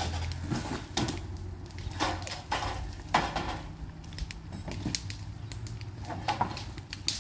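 Irregular knocks, cracks and scraping as roofing is torn off a mobile home roof, the sharpest crack about three seconds in.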